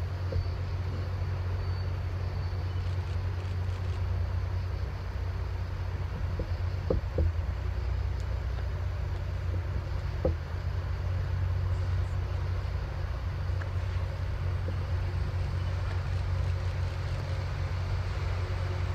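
Rail grinder train's diesel engines running as it approaches: a steady low rumble, with a couple of sharp clicks about seven and ten seconds in.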